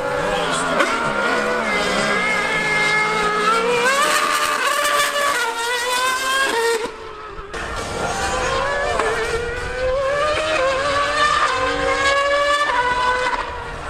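A 2013 Mercedes Formula One car's high-revving V8 and a Yamaha R1M superbike's engine accelerating hard on track. Their notes rise in pitch again and again through quick upshifts. The sound drops briefly about seven seconds in, then the revving resumes.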